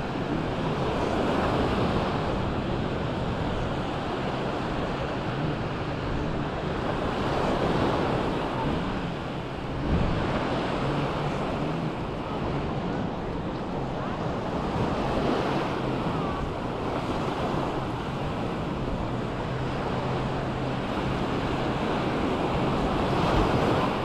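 Small waves breaking and washing up a sandy shore, the surf swelling every several seconds, with wind rumbling on the microphone.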